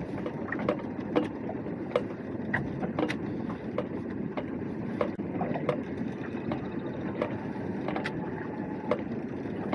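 Small open fishing boat drifting in a large swell: a steady wash of water and wind, with scattered sharp clicks and knocks from the rods, reels and boat as two anglers fish over the side.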